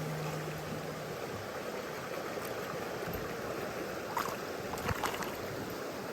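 Mountain stream water rushing steadily over rocks, with a few light clicks about four to five seconds in.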